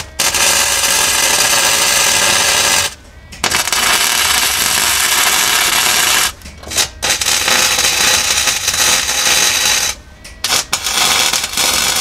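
Flux-core wire welding with a Lincoln 140 MIG welder: the loud, steady crackle of the arc as stitch welds join a steel seat bracket to a new sheet-steel floor pan. The arc runs in four spells, breaking off briefly about three, six and ten seconds in.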